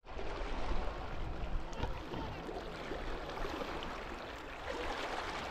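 Steady outdoor background noise, an even rushing hiss, with faint distant voices, strongest in the first couple of seconds.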